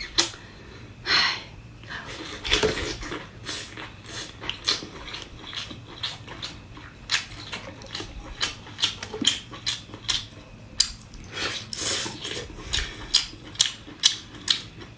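Close-miked eating: irregular wet smacks and clicks of chewing and lips, a few a second.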